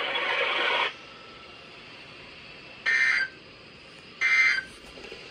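NOAA Weather Radio end-of-message data tones at the close of the weekly test: two short, identical buzzy digital bursts a bit over a second apart, played through a weather radio's speaker. A hiss from the radio cuts off about a second in.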